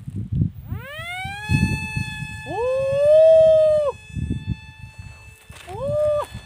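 The small electric motor and propeller of a foam toy glider, spinning up in a rising whine about a second in and then holding a steady high pitch. Two loud drawn-out calls rise and fall over it: a longer one a little past two and a half seconds in, and a shorter one near the end. Low wind rumble runs underneath.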